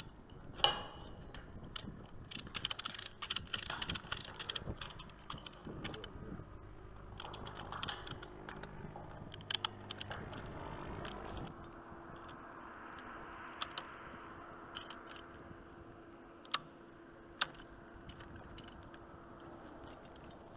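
Faint, irregular metallic clinking and clicking of rigging hardware (steel chain, hook and carabiners) being handled with gloved hands. The clinks come thickly in the first half and thin out to a few sharp ticks over a faint steady hum in the second half.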